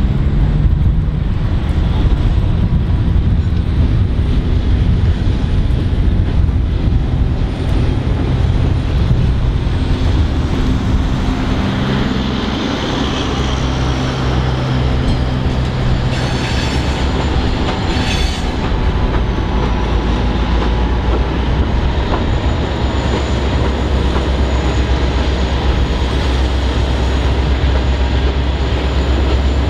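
Diesel-hauled freight train rolling over a railway viaduct. The locomotive's engine runs under a heavy, continuous rumble of wheels on the rails. Thin high wheel squeal comes and goes, and a brief patch of clicking and clatter comes a little past the middle.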